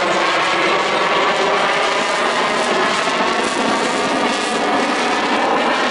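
Loud, steady jet noise from an F-35A Lightning II's single F135 afterburning turbofan as the fighter flies a demonstration pass, a dense rushing sound with no breaks.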